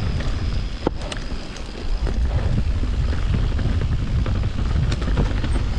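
Wind buffeting the microphone over the low rumble of a mountain bike rolling along a dirt trail, with scattered sharp rattles and clicks, one of the loudest about a second in.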